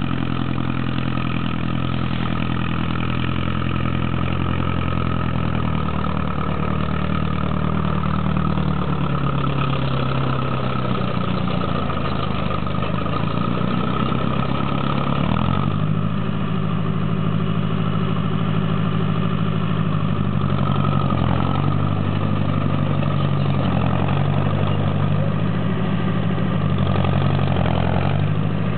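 International TD-9 crawler tractor's diesel engine running steadily as the dozer drives in under load. The engine note sags for a few seconds near the middle, then picks back up.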